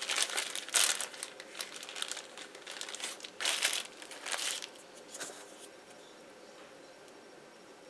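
Clear plastic bag crinkling as it is handled, in irregular bursts that are loudest about a second in and again about three and a half seconds in, then dying away about five and a half seconds in.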